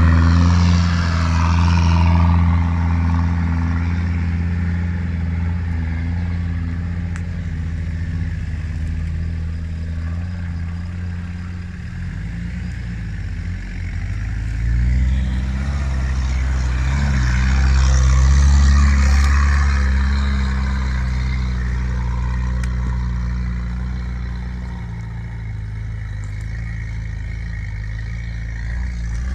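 Off-road 4x4 engines working at low revs as they crawl up a rocky gravel track: first the Toyota Land Cruiser LJ70's 2.4-litre diesel, then, from about 13 seconds in, a Jeep's 2.1 diesel climbing the same slope, its engine note swelling around 18 seconds in and settling again.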